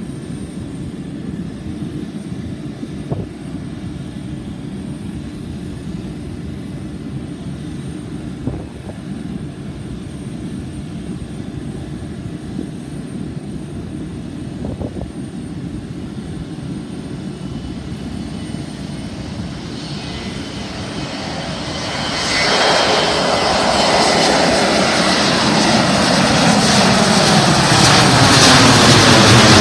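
Boeing 737-200's Pratt & Whitney JT8D turbofans at takeoff power. A distant low rumble during the takeoff roll turns sharply louder and fuller about three-quarters of the way through as the jet lifts off and climbs toward overhead. Near the end comes a sweeping, falling whine-and-roar.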